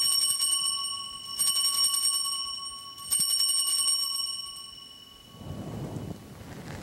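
Altar bells rung three times at the elevation of the chalice, each ring a bright jangle of several bells that fades; the last rings out about five seconds in. They signal the consecration of the wine.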